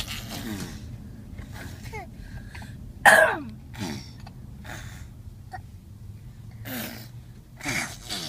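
Young girls making fart noises with their mouths: a string of short vocal outbursts with falling pitch, the loudest about three seconds in and two more near the end.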